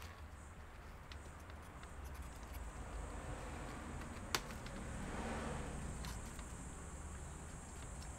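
Faint ticks and handling noise from working on a laptop during disassembly, with one sharp click about four seconds in, over a low steady hum.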